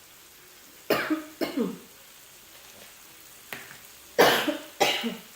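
A woman coughing in short bursts while eating: a pair about a second in, then a louder pair near the end.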